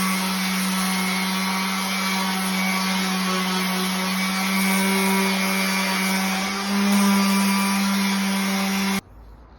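Electric power tool running steadily with a strong motor hum and a whirring hiss, rising slightly in pitch and level about seven seconds in, then stopping abruptly near the end.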